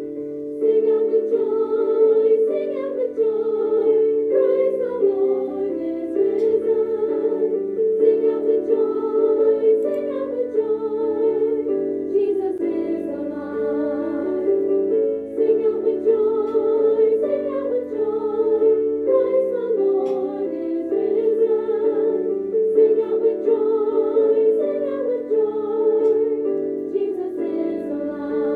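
A song: a singing voice with vibrato over a steady keyboard accompaniment.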